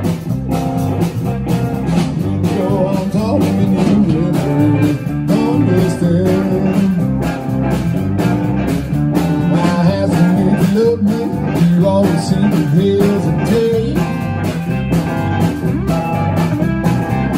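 Live electric blues band playing an instrumental passage between vocal lines: electric guitars and bass guitar over a steady drum beat.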